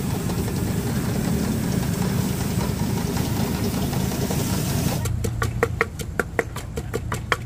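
Steady, loud rushing of a high-pressure gas wok burner under a wok of stir-frying clams. About five seconds in it changes to a metal spatula clanging rapidly against the wok, several ringing strikes a second over the burner's hum.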